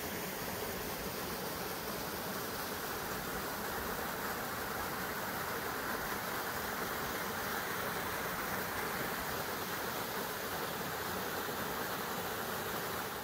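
Small waterfall spilling over granite rocks into a creek pool, a steady rushing of water.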